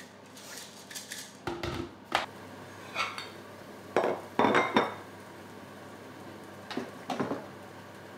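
Kitchen utensils and dishes clinking and knocking in a series of short, separate clatters.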